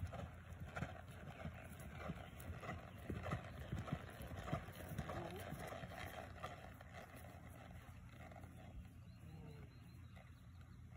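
A horse's hooves falling on grass as it walks under a rider, a run of soft, irregular thuds.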